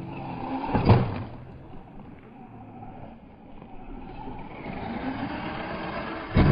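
Small electric RC short-course truck running on concrete ramps, its motor and tyres making a low steady noise, with two heavy thumps as it lands from jumps, about a second in and again near the end.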